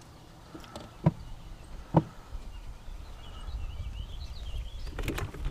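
Low, steady rumble of wind and handling on a small fishing boat, with two sharp knocks about a second apart early on, the second the loudest. Faint high bird chirps come in during the second half.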